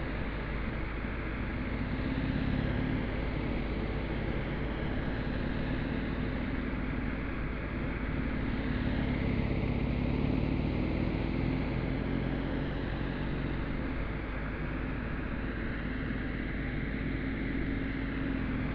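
Cruiser motorcycle engine running at low revs through slow, tight turns, its pitch and loudness rising and falling slightly as the throttle is eased on and off.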